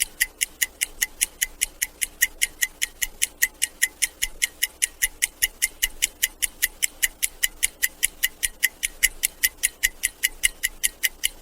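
Analog stopwatch ticking steadily, about five sharp, even ticks a second.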